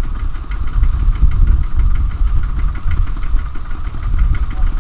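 Kubota ZT140 walking tractor's single-cylinder diesel engine running at a steady idle, a deep rumble with a rapid, even knock of its firing strokes.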